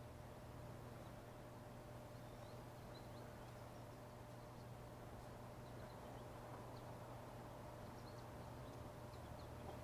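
Faint outdoor background: a low steady hum with a thin steady tone, and scattered brief high chirps from distant birds.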